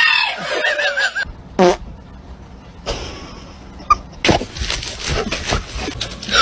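A dog's odd, wavering vocal sound that cuts off about a second in, followed by a short falling squeal and, later, a run of knocks and rattles.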